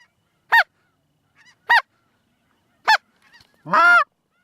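Snow goose calls: three short, high, nasal honks at an even pace of about one every second and a bit, then one longer, wavering call with shifting pitch near the end.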